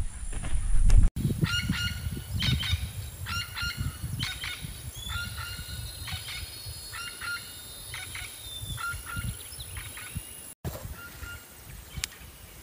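Birds calling in a group: many short, repeated honking calls, several voices overlapping, from about two seconds in until about ten seconds in, with a few fainter calls near the end. Low rumbling walking and handling noise fills the first second.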